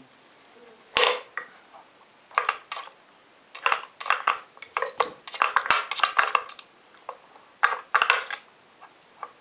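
Wooden flaps, lids and pegs of a handmade wooden dog puzzle toy (Pauli's Commander) knocking and clacking in irregular bunches as a dog noses and paws at it. A sharp single knock comes about a second in.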